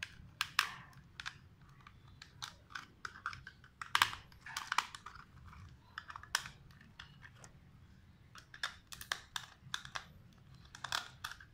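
Irregular plastic clicks, taps and scrapes of a screwdriver working on the underside of a plastic toy RC car as it is handled, the loudest tap about four seconds in.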